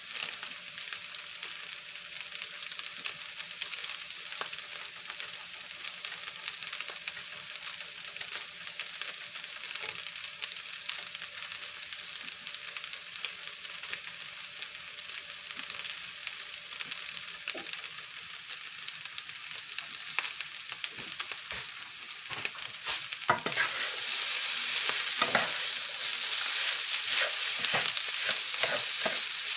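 Rice frying in a pan, a steady sizzle with the scrape and tap of a spatula stirring it. About 23 seconds in the sizzle gets louder and the stirring strokes come faster.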